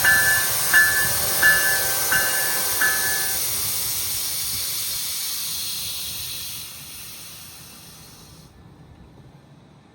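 A GO Transit commuter train passing and drawing away, a steady hiss of wheel and rail noise that slowly fades and cuts off sharply near the end. A bell rings about every 0.7 seconds over the first three seconds, then stops.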